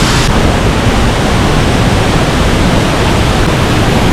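Waterfall running: a loud, steady rush of falling water.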